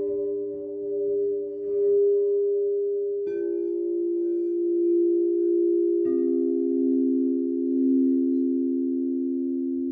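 Singing bowls struck one after another, about every three seconds, each new bowl lower in pitch than the last, their tones ringing on and overlapping with a slow waver.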